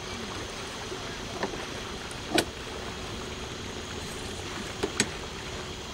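Small tour boat moving up a river channel: steady rush of water along the hull with a low steady motor hum, broken by a few sharp knocks, the loudest about halfway through and a quick pair near the end.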